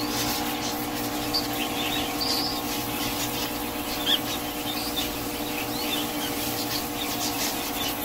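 Electric water pump running with a steady hum as the floor is hosed down, while small cage birds chirp now and then.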